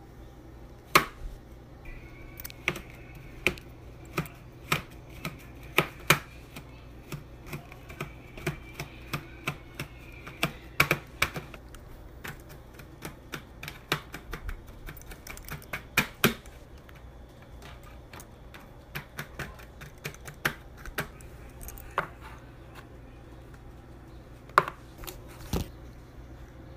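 Kitchen knife chopping a crumbly Lush Big Bang bubble bar on a plate: a string of sharp, irregular taps and crunches as the blade strikes through to the plate. They come thick for the first sixteen seconds or so, then thin out to a few last taps near the end.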